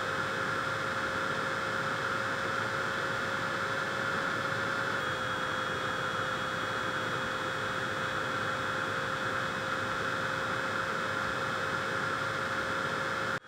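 Small fan of a miniature air conditioner running steadily: an even rush of air with a faint steady whine, cutting out for an instant near the end.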